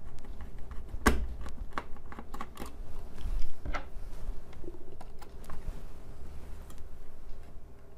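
Small irregular clicks and taps of a screwdriver and screws against a laptop's plastic drive bay as a 2.5-inch SSD is screwed in, the sharpest click about a second in.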